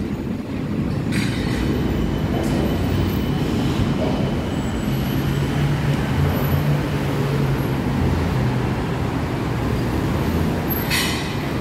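BTS Skytrain electric train running on the elevated track overhead: a steady, loud rumble with a thin high whine through the first half.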